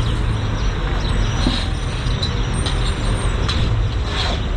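A motor running steadily with a low rumble, with a few faint knocks over it.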